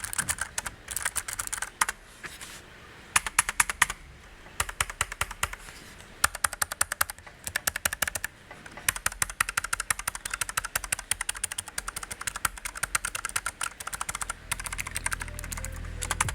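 Typing on a Keychron K3 low-profile mechanical keyboard with orange Keychron optical switches: quick runs of fairly clicky keystrokes with short pauses between bursts. A low hum comes in near the end.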